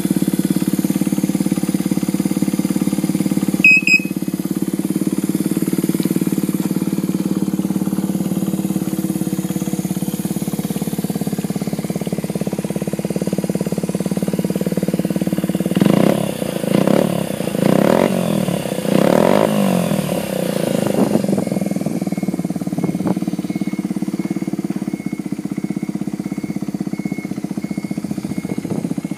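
Honda Ape 50's small air-cooled single-cylinder four-stroke engine idling steadily, with a run of about five quick throttle blips about halfway through before it settles back to idle.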